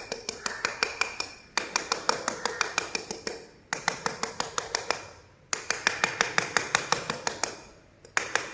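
Quick, even tapping on a granite stair slab, about six or seven taps a second in runs of about two seconds with short pauses between, each tap leaving the stone ringing. This is a tap test of the slab's bedding, listening for hollow spots.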